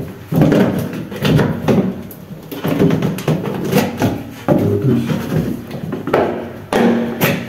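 PVC ceiling panel scraping, creaking and clicking in repeated bursts as a putty knife pries and pushes its edge into the trim channel, with short squeaks from the flexing plastic.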